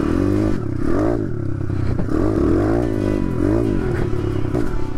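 Small dirt bike engine revving up and down over and over, its pitch rising and falling about every second as the throttle is worked on a muddy trail, with rattling from the bike.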